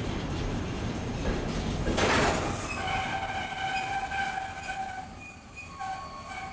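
Container freight train's wagons rolling past with a low rumble. About two seconds in there is a sharp click, then high-pitched wheel squeal with several held tones that come and go.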